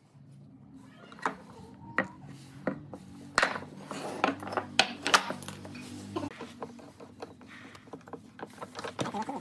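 Sharp knocks and clatter of wooden boards being handled and set down on a wooden workbench, a string of separate hits about one every half second to second, over a low hum that cuts off about six seconds in.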